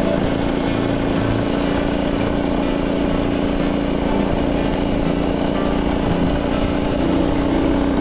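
Harbor Freight Predator 212cc single-cylinder four-stroke engine running steadily at speed on a motorized bicycle, with its governor removed and driving through a torque converter, holding one even pitch. Wind noise from riding at 30-plus mph runs over it.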